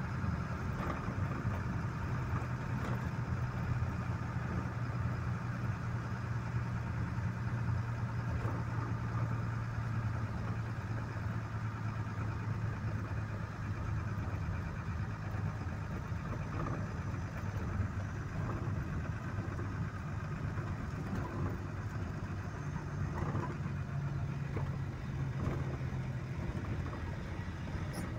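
A vehicle engine running steadily, heard from inside the cab while driving, with road noise. Its low hum shifts a little in pitch in the second half.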